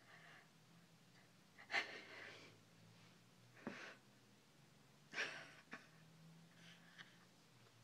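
A person's sharp, gasping breaths, three of them a second and a half to two seconds apart, in an emotional reaction, with a hand over the mouth for the later ones. A faint steady low hum runs underneath.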